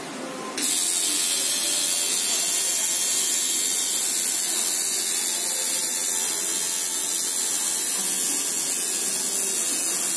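Dragonhawk sidewinder rotary tattoo machine with a cartridge needle switched on about half a second in, then running steadily in the air, not on skin, as a high-pitched buzzing hiss.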